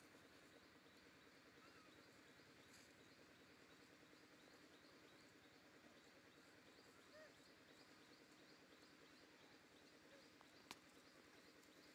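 Near silence: faint outdoor background noise with a faint, rapidly repeating high ticking and a single sharp click near the end.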